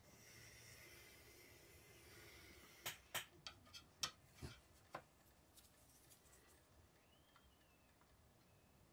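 Very quiet room tone broken, about three seconds in, by a quick run of roughly eight small sharp clicks over two seconds: steel watchmaker's tweezers clicking against the parts of a pocket-watch movement as the clutch wheel is handled.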